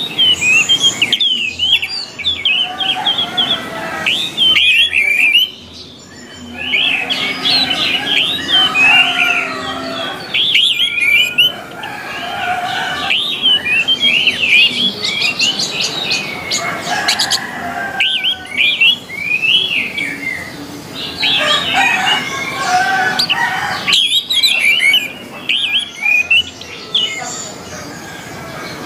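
Orange-headed thrush singing vigorously: fast runs of sliding chirps and whistled notes, broken by short pauses every few seconds.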